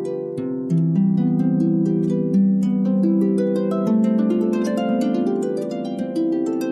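Harp playing: a continuous flow of rapidly plucked notes ringing over one another, with a lower note shifting every second or two.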